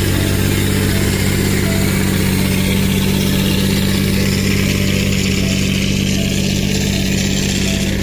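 Diesel engine of an XCMG single-drum road roller running steadily at close range, a loud, even engine note.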